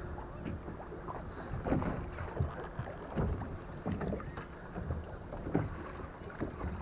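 Water lapping and slapping against a small boat's hull in irregular little knocks and splashes, with light wind on the microphone.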